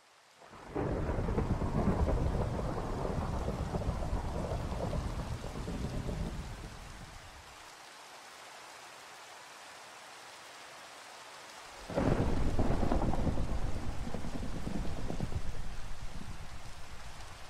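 Steady rain falling, with two long rolls of thunder. The first begins about a second in and fades away over some six seconds; the second breaks about twelve seconds in and is fading near the end.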